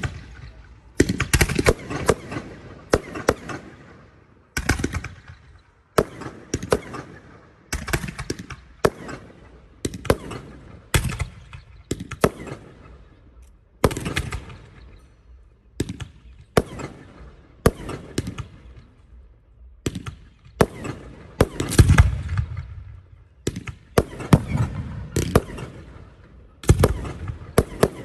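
Aerial firework shells bursting in quick succession, about one bang a second, each trailing off briefly. The loudest bursts come about three-quarters of the way through.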